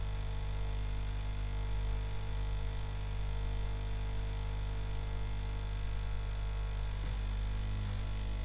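Hot air rework station running with a steady hum of many even tones, a noise it keeps making that is bad enough for its owner to replace it.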